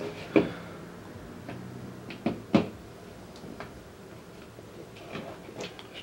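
A few light clicks and taps of Knipex precision snap ring pliers and a small snap ring against the tabletop as the ring is picked up in the plier tips, the sharpest about half a second in and again about two and a half seconds in, over a faint steady hum.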